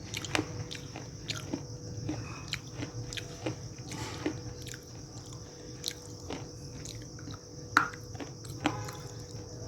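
A person biting and chewing crunchy dry clay: irregular sharp crunches, the loudest nearly eight seconds in, over a steady high-pitched hiss.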